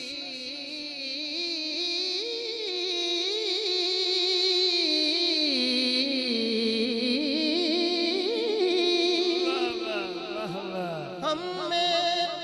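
A man singing a naat into a hand microphone: a long, drawn-out melismatic line whose held notes waver and slide up and down, over a steady low drone for the first half.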